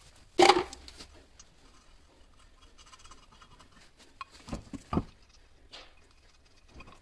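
Hand-fitting a steel wheel to its hub: metal clinks and scrapes as the wheel fasteners are started by hand, with one sharp metallic knock about half a second in and a few clicks around five seconds.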